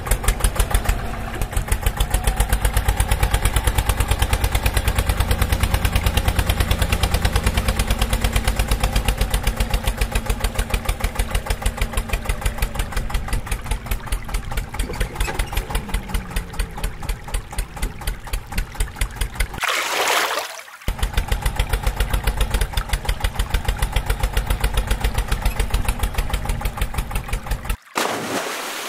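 Tractor engine idling with a rapid, even chugging beat. It is broken about two-thirds through, and again near the end, by a second-long rush of splashing water.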